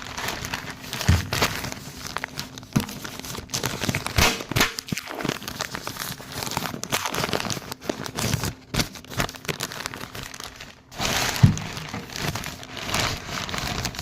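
Irregular crinkling and rustling of something being handled, with scattered light knocks.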